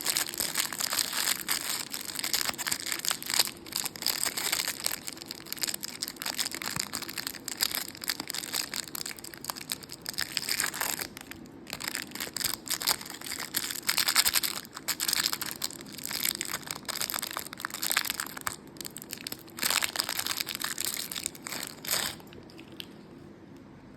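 Close-up crackling, crushing and crinkling from chocolate lollipops and their wrappers being handled, with short pauses, stopping about 22 seconds in.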